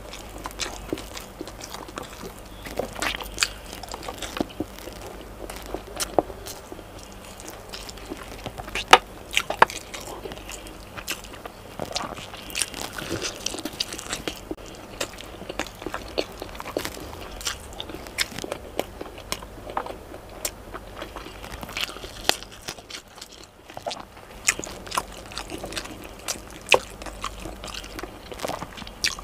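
Close-miked eating: a person biting and chewing braised chicken adobo by hand, with wet mouth sounds and scattered sharp clicks, the loudest about nine seconds in.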